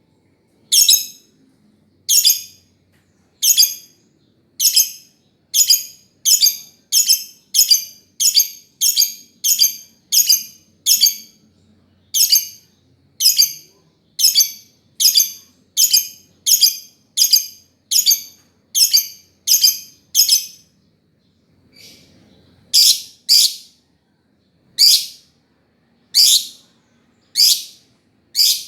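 Lovebird giving a long run of short, high-pitched chirps, one every half second to second, broken by a pause of about two seconds roughly two-thirds of the way through before it starts again.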